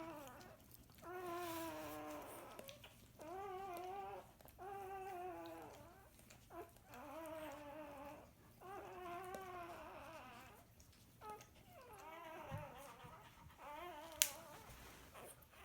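Newborn Labrador puppy crying in a string of thin, wavering whimpers, each about a second long. A single sharp click near the end.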